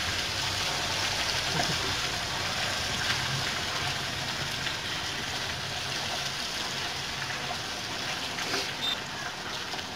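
Fish frying in hot coconut oil in a wok over a wood fire: a steady sizzle, with a few light taps of the metal slotted ladle against the pan.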